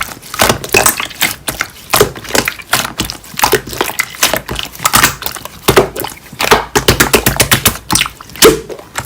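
Slime being squeezed and pressed by hand, giving rapid runs of sharp clicking pops and crackles. A fast cluster of clicks comes about two thirds of the way through.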